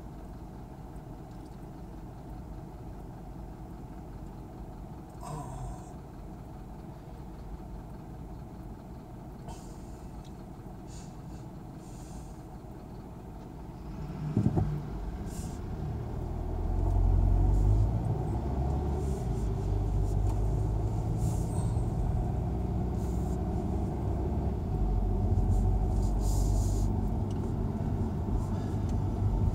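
Car cabin sound of the car's engine idling while it stands in traffic, then the car pulls away about halfway through: a short knock, then a louder low engine and road rumble as it drives on.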